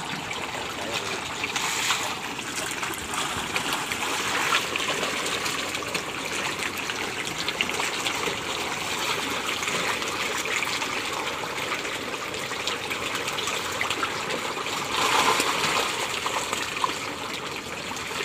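A dense crowd of fish, golden common carp among them, thrashing at the surface of a pond in a feeding frenzy: a continuous crackling splash and churn of water, a little louder about fifteen seconds in.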